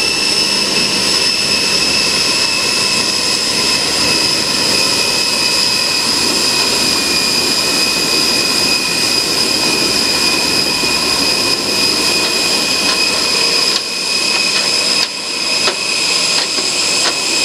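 Steady high whine of jet aircraft turbines on the apron: two high tones held throughout over a loud rushing noise, dipping briefly about fourteen seconds in.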